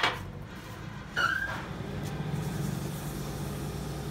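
Workshop sounds: a sharp knock, a short clatter with a brief ringing tone about a second in, then a steady low mechanical hum.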